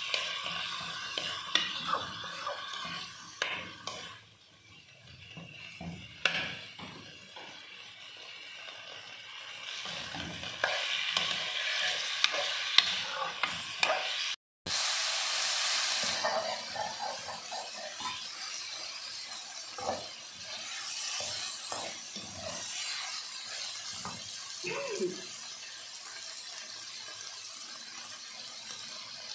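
Chicken pieces with onion and garlic paste sizzling in oil in a metal karahi while a metal spoon stirs them, scraping and clicking against the pan over and over. The sound cuts out for a moment about halfway through.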